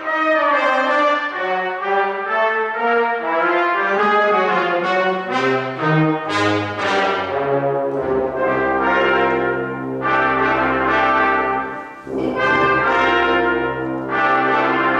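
Brass ensemble of trumpets, tubas, euphonium and trombones playing a jazz-style piece. The bass line moves in the first half, then holds long low notes, with a short break about twelve seconds in.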